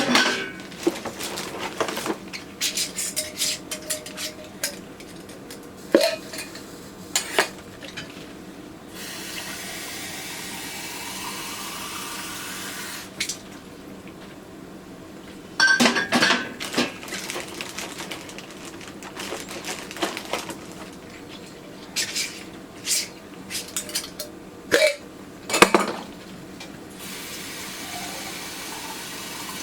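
Glass canning jars clinking and knocking against a metal pan and against each other, in scattered bursts. For a few seconds in the middle, and again near the end, tap water runs; in the middle stretch the pitch rises as a jar fills.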